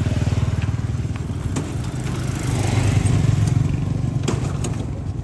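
Motorcycle engine running hard, its revs swelling about two seconds in and easing off near the end.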